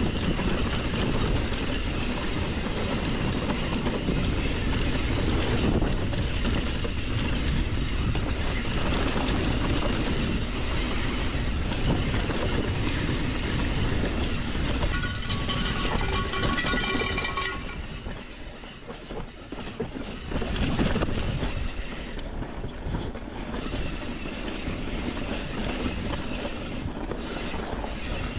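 Hardtail mountain bike ridden fast down a rough dirt trail: constant wind rush over the camera and a rattling rumble of tyres, frame and drivetrain over the bumps. A brief high squeal comes in about fifteen seconds in, and the rumble eases and turns choppier a couple of seconds later.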